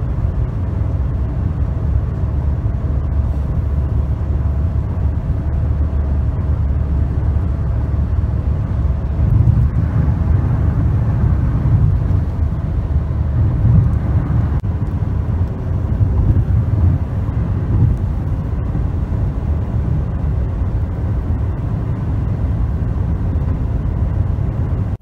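Steady low rumble of road and engine noise heard from inside a car cabin while driving at freeway speed.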